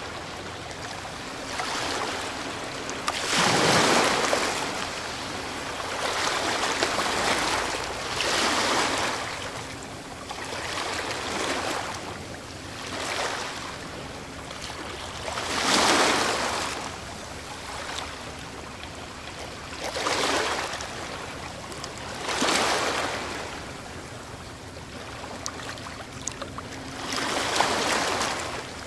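Ocean waves breaking on a shore, the surf surging and washing back every few seconds. The loudest breakers come about four seconds and sixteen seconds in.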